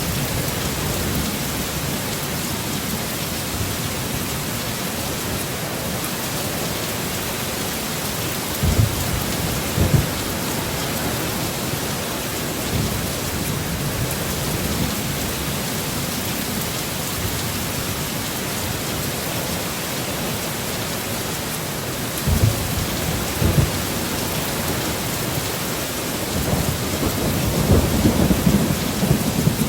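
Heavy rain falling in a steady hiss, with a few short low rumbles of thunder and a longer rumble rolling in near the end.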